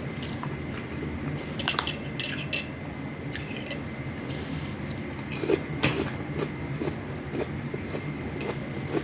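Eating sounds: utensils clicking and clinking against a plate, with a sharper knock about six seconds in and chewing of fried dried fish and eggplant in between, over a steady low hum.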